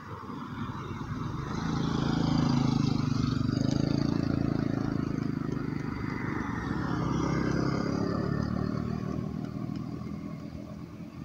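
Motor vehicles passing on the road: engine noise swells about two seconds in, eases, swells again around seven seconds, then fades.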